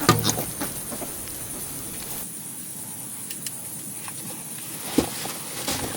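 Two sharp wooden knocks, one at the very start and one about five seconds in, with a few lighter taps between, from hand work on the wooden shelter, over a steady high hiss of outdoor ambience.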